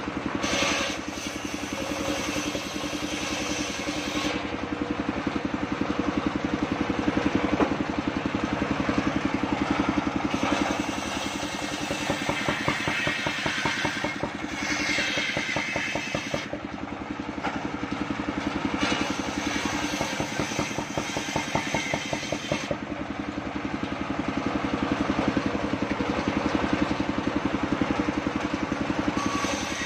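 Engine-driven circular saw on a mobile sawmill rig running steadily with a rapid engine beat while a log is pushed through the blade; it grows louder in stretches as the blade cuts into the wood.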